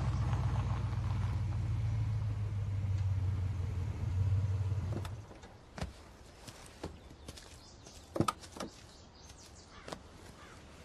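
An SUV's engine running with a steady low rumble, which stops about five seconds in. A few sharp clicks and knocks follow as the driver's door opens and he climbs out.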